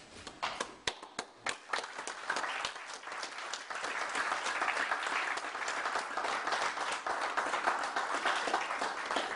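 Audience applause: a few scattered claps at first, then many people clapping together in a steady run of applause that stops near the end.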